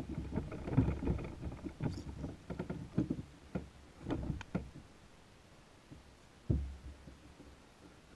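Irregular knocks and thumps on a plastic sit-on-top kayak's hull, a cluster over the first few seconds and a heavier low thump near the end, as someone moves about in the boat.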